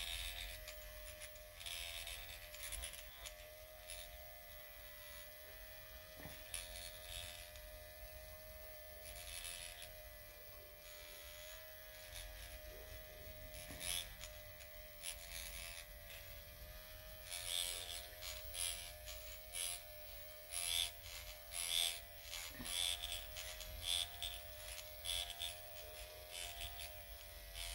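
Dr. Pen electric microneedling pen running against the skin of the face with a steady motor hum. Short scratchy bursts come and go, more often in the second half.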